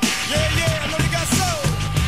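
Rock music with a steady, fast drum beat.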